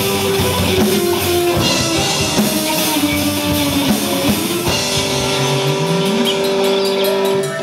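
Live rock band: a distorted Les Paul-style electric guitar and a drum kit playing together. A little under five seconds in, the drums drop out and a single held note rings on, with a lower note sliding upward beneath it.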